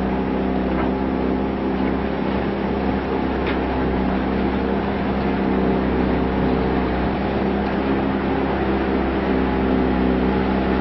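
A small open boat's engine running at a steady speed: an even hum with a steady hiss over it.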